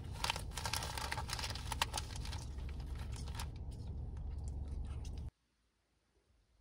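Handling noise: rapid, irregular light clicks and rustling over a low rumble, cutting off abruptly a little over five seconds in.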